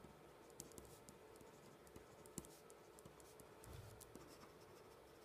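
Faint scratching of a ballpoint pen writing on lined paper, with a few light ticks and soft knocks from pen and hand on the desk.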